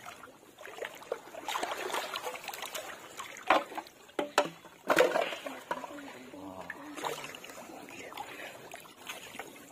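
Water splashing and dripping as a large fish is hauled out of shallow muddy water, with a few sharp slaps between about three and a half and five seconds in.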